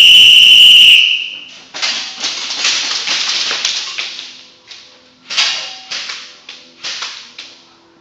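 A loud, steady whistle blast starting the airsoft game, ending about a second and a half in, followed by airsoft guns firing in repeated bursts of rapid clicking shots.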